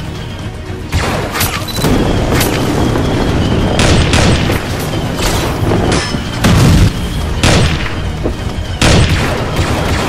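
Added battle sound effects, blaster shots and booming blasts, fired about once a second over dramatic background music.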